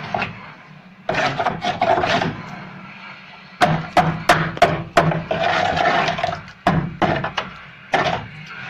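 Rasping scrapes, broken in the middle by a run of sharp knocks about three a second, then a few more knocks near the end.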